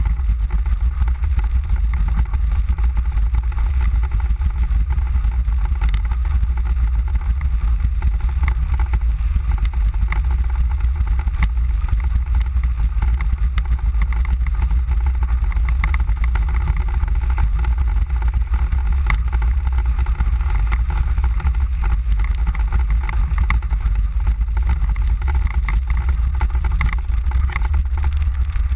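Mango velomobile rolling along: a steady low rumble from the wheels and the enclosed shell, with frequent small rattles, much of it over cobblestones.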